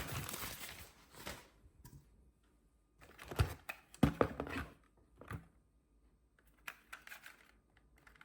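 Packaging rustling briefly, then a handful of separate light clicks and knocks from the vacuum's parts being unwrapped and handled.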